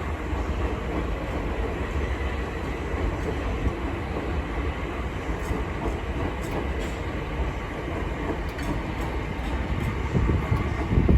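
Southeastern class 465 Networker electric multiple unit running into the station: a steady rumble of wheels on the rails with a faint steady whine, growing louder with low thumps near the end.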